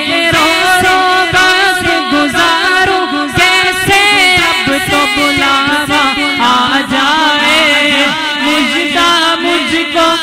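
A man singing a naat unaccompanied into a microphone: a wordless, melismatic vocal line with wavering, ornamented held notes over a steady low vocal drone.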